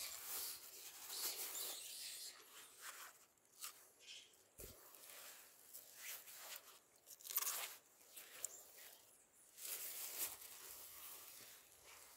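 Faint, irregular crunching and rustling close by: a Barbary macaque chewing sweet potato, with rustles of dry grass.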